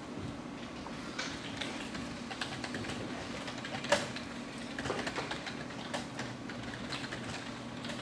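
Scattered light clicks and taps over a steady low room hum, with one sharper click about four seconds in.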